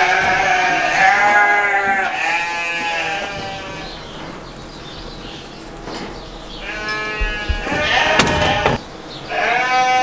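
Sheep bleating loudly, several long bleats one after another, with a short rattle and knock about eight seconds in.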